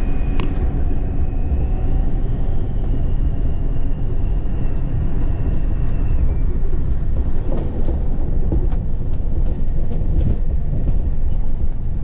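A bus driving on a rough unpaved road, heard from inside: a steady low rumble of engine and tyres with scattered knocks and rattles from the bodywork. A thin high whine runs through the first half and stops about six seconds in.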